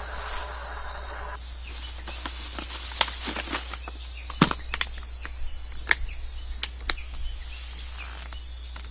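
A steady, high-pitched chorus of insects, with a few scattered sharp clicks and knocks in the middle, the loudest about halfway through.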